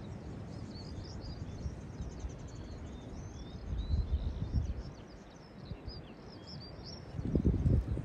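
Wind buffeting the microphone, with louder gusts about four seconds in and near the end, under a small bird's continuous high, chirping song.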